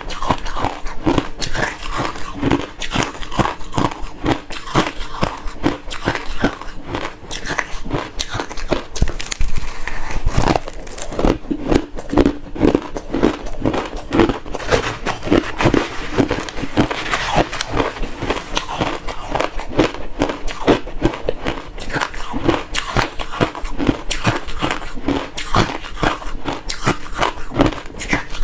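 Close-miked chewing of refrozen crushed ice: dense, continuous crunching and cracking as the ice is bitten and ground between the teeth.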